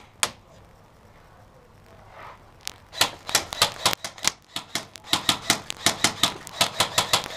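Airsoft gunfire at close range: a few sharp clicks at the very start, a pause of about two and a half seconds, then a rapid, irregular run of sharp clicks, several a second, from about three seconds in.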